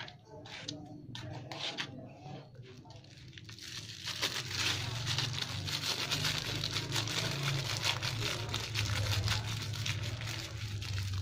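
Thin plastic bag crinkling in the hands as bait dough is squeezed and kneaded inside it, after a few scattered scrapes and clicks; from about four seconds in the crinkling becomes steady and continuous.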